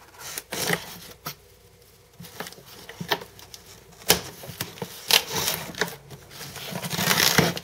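Cardboard shipping box being opened by hand: scraping, tearing and rustling of cardboard and packing, with sharp clicks and knocks scattered through and a longer rustle near the end.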